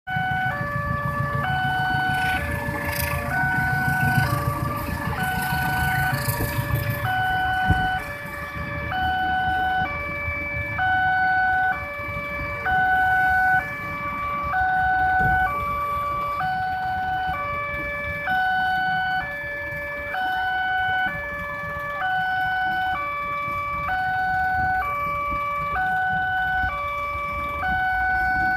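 Indonesian level-crossing warning alarm sounding, an electronic two-tone chime that alternates steadily between a higher and a lower note about every 0.7 s: the barriers are down for an approaching train. A low rumble runs underneath, strongest in the first eight seconds.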